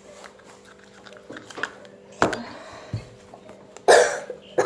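Sticky homemade slime being stirred in a bowl, with small squelches and clicks. Near the end comes a short, loud cough.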